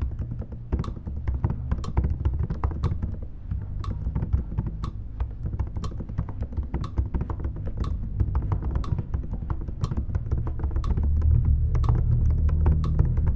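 Fingers typing fast on a computer keyboard: a steady run of irregular key clicks, several a second. A low rumble runs underneath and grows louder near the end.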